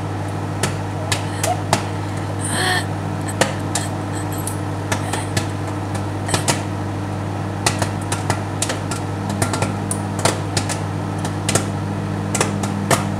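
Microwave oven running with a steady electrical hum while popcorn pops inside it, sharp irregular pops about two or three a second, thicker toward the end.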